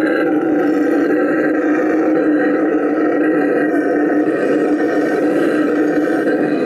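Bolivian red howler monkey roaring: one long, unbroken low howl that holds steady throughout.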